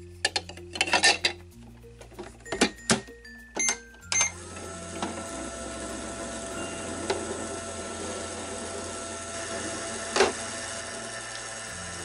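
Clicks and knocks of hard plastic as toy ice lollies are set inside a toy microwave and its door is shut; then, about four seconds in, the toy microwave starts running, a steady electronic hum with a few fixed tones and a single click near the end.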